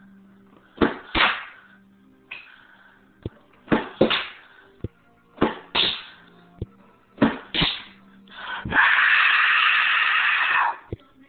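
Tech Deck fingerboard clacking on a parquet wood floor: four quick pairs of sharp clacks, a pop and a landing each time, with a few lighter ticks between. Near the end there is a steady rasping noise about two seconds long.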